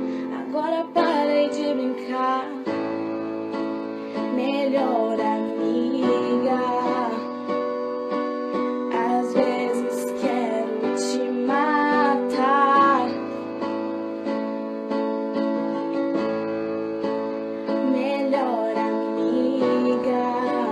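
Music: a pop song with guitar and keyboard accompaniment, a wavering melody line like wordless singing coming and going over the chords.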